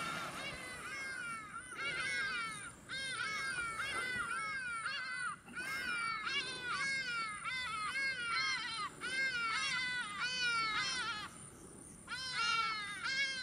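Animal calls from several voices overlapping: quick arched notes, each rising and falling, a few a second, in bouts of a few seconds with short breaks, the longest break about three-quarters of the way through.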